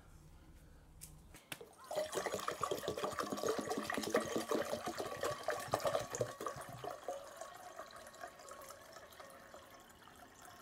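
Water poured from a plastic container into a ceramic bowl, starting about two seconds in: a loud splashing, gurgling pour at first, easing after about six seconds to a softer, steady flow as the bowl fills.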